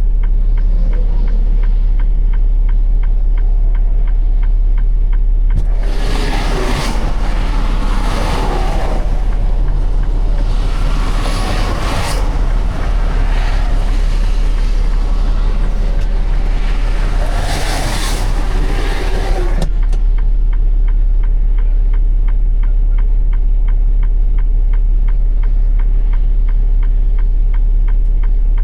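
Steady deep rumble with fast, even ticking from a semi-truck's diesel engine idling. From about six seconds in to about twenty seconds, a louder rushing noise covers it, then cuts off suddenly.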